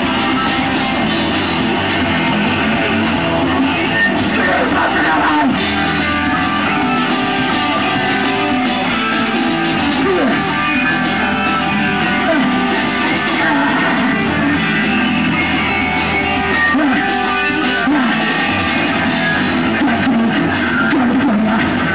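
Hardcore punk band playing live, recorded in mono: distorted electric guitar and a fast-hit drum kit, with vocals into a microphone.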